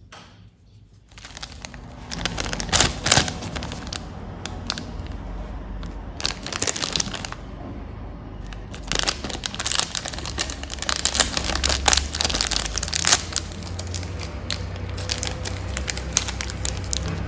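Candy wrappers and packaging crinkling and crackling as they are handled and opened, starting about a second in, in bursts that are loudest about three seconds in and again from about nine to thirteen seconds.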